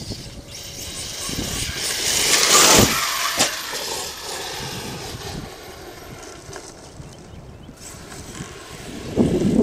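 Arrma Kraton 8S RC truck running over dirt, its electric motor whining and the tyres scrabbling. The sound swells to its loudest two to three seconds in, with two sharp knocks near three seconds, then runs steadier until a loud burst near the end.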